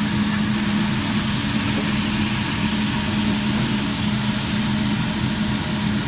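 Water sizzling and steaming on a hot flat-top griddle around a pile of sliced meat, over a steady low machine hum.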